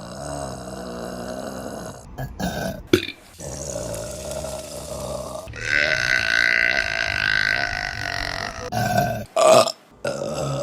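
Women burping in a run of short clips cut together: several burps with abrupt cuts between them, one long loud burp through the middle and a short loud one near the end.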